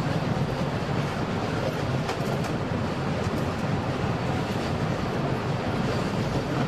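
Electric train on the Flåm Line running along the track, heard from the cab: a steady rumble of wheels on rail.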